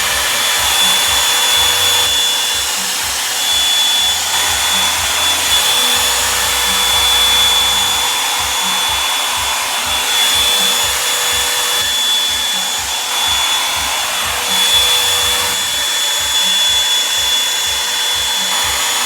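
Revlon One-Step hair dryer brush running on its high setting: a steady rush of blown air with a thin high whine that fades in and out.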